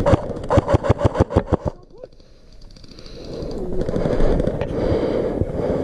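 Airsoft AK47-style electric rifle firing a rapid full-auto burst of about a second and a half, roughly nine or ten shots a second. After a short lull, a steady rushing noise builds over the last few seconds.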